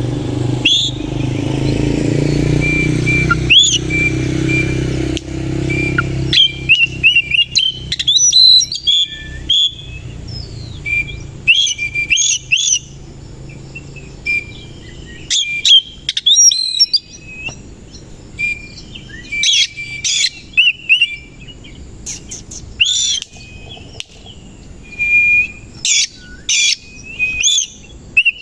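Kacer koci magpie-robin singing: bursts of loud, sharp whistled notes and slurred whistles, separated by short pauses. A low steady hum lies under the song for the first six seconds or so.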